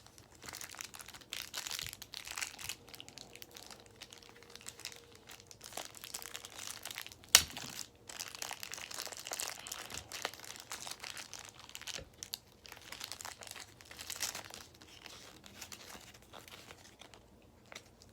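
Crinkling and rustling of toy packaging being handled and searched through, in irregular bursts, with one sharp click about seven seconds in.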